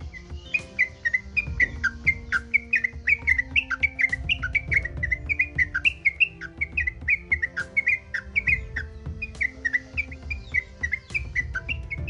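Yellow-vented bulbul (trucukan) singing: a long, fast run of short whistled notes, about four a second, going up and down in pitch.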